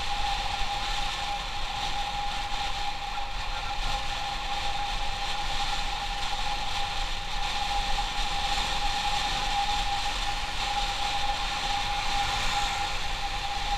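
Motorcycle running at a steady speed: a constant rushing noise with one steady whine over a low rumble, unchanged throughout.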